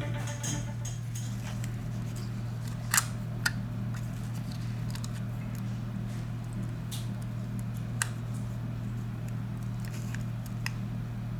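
A few sharp, small clicks of repair tools and phone parts being handled, over a steady low hum.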